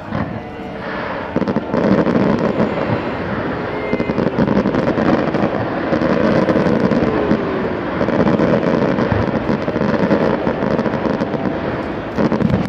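Aerial fireworks shells bursting in quick succession, a dense, continuous barrage of bangs and crackles that swells about a second and a half in and keeps on.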